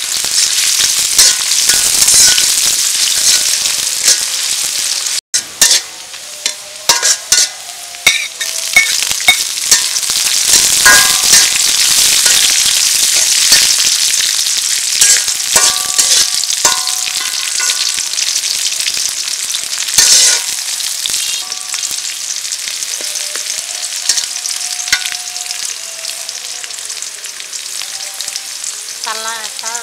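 Sliced onions and green chilies sizzling in hot oil in an aluminium karahi, with a steady frying hiss. A metal spatula stirs them, scraping and clinking against the pan again and again. The sound cuts out for an instant about five seconds in.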